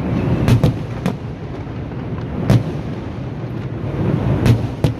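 Fireworks going off: about six sharp booms at irregular intervals, two close together about half a second in and two more near the end, over a continuous low rumble of echoing bursts.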